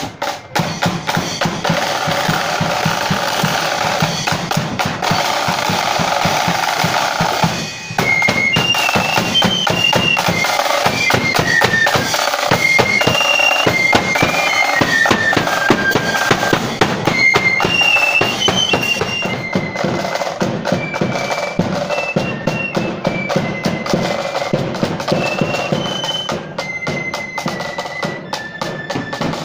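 Marching flute band playing: snare and bass drums beat a march throughout, and from about eight seconds in a high, shrill flute melody carries over the drums.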